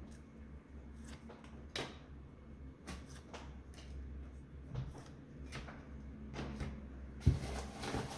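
Items being handled and taken out of a gift box: a few scattered light knocks and clicks over a steady low hum, with a sharper knock near the end.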